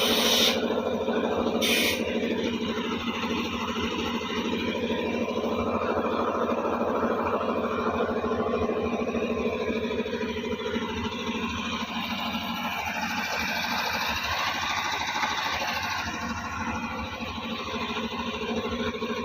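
Excavator diesel engine running steadily. There are two short hisses, one right at the start and one about two seconds in.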